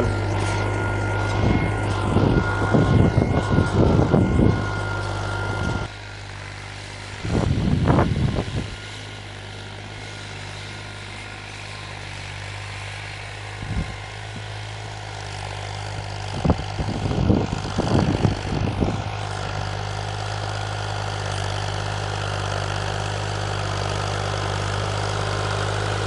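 Fiat 480 tractor's three-cylinder diesel engine running steadily under load, pulling a 13-tine spring cultivator with the lever full down. The sound drops in loudness about six seconds in. Several louder bursts of rumbling noise come a few seconds in, near eight seconds and around eighteen seconds.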